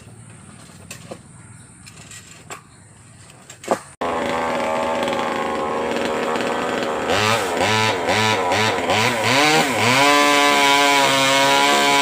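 A few light knocks, then about 4 s in a chainsaw engine comes in suddenly at a fast idle. It is revved up and down about six times in quick blips, then held at high revs.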